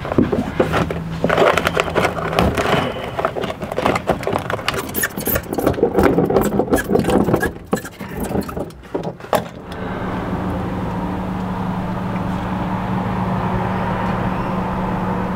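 Foil-backed sound-deadening mat being handled and pressed down by hand, with irregular crinkling, scraping and tapping. After about ten seconds this gives way to a steady low hum.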